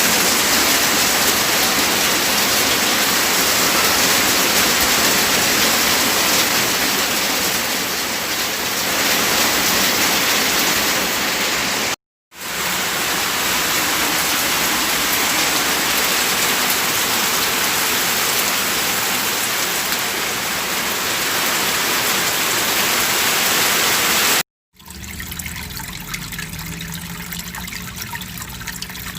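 Steady rushing water, heard as two clips of loud, even noise split by a brief silence about twelve seconds in. After a second brief break near the end, a quieter trickle of running water begins.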